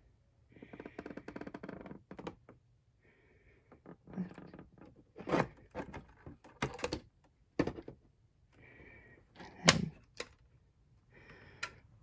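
Plastic housing of an all-in-one PC being lifted and handled: a scraping rustle early on, then a series of sharp plastic knocks and clicks, the loudest about ten seconds in.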